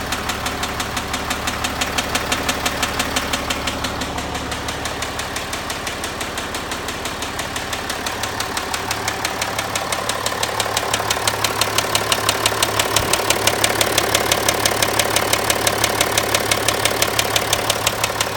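Land Rover Discovery 4 engine running at idle with a rapid, even ticking knock that grows a little louder about halfway through. The owner puts the noise down to crankshaft failure.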